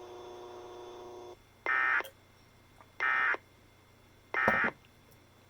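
Emergency Alert System end-of-message code: three short, identical bursts of screechy digital data tones, about a second and a half apart, closing the tornado warning broadcast. Before them a steady hum cuts off just over a second in.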